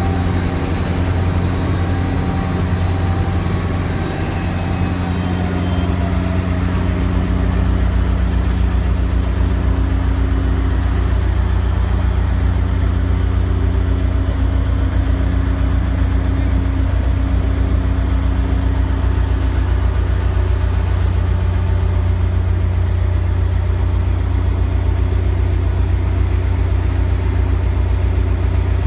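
Caltrain F40PH diesel locomotive's engine running with a steady, deep hum. The low note shifts about six seconds in and the sound gets slightly louder, and a faint high squeal fades out around the same time.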